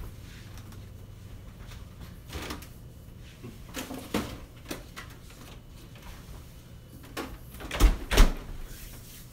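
Refrigerator door opened and closed: light knocks and clicks in the middle, then two loud thumps in quick succession near the end.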